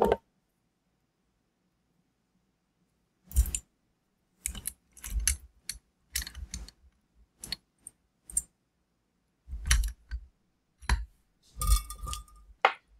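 Small metal parts clicking and knocking against a bench vise as a small wire connector is handled and clamped in the jaws. About a dozen short clicks and knocks, starting about three seconds in, with a brief squeak near the end.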